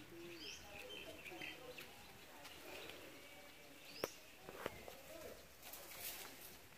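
Faint outdoor ambience: birds chirping in short high calls, with faint distant voices, and two sharp clicks about four and a half seconds in.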